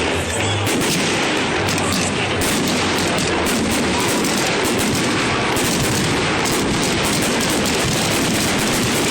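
Fireworks display: many rapid bangs and crackles running together into a dense, continuous barrage.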